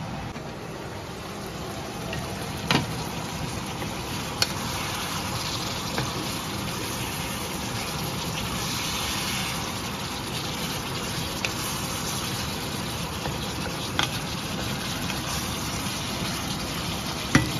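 Meat chunks simmering and sizzling in their own juices in a pan as the liquid boils down, with a wooden spatula stirring and knocking against the pan a few times.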